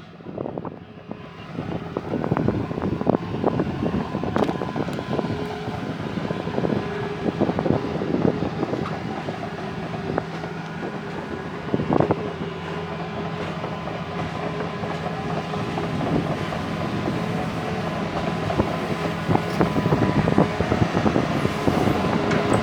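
Crawler excavator's diesel engine running steadily while its steel tracks clank and knock irregularly as the machine moves, with one louder clank about halfway through.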